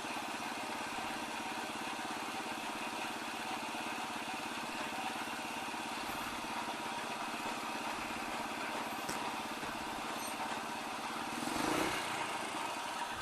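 Rusi KR125 motorcycle's single-cylinder 125 cc engine running steadily under way, heard from the rider's position, with a brief swell near the end.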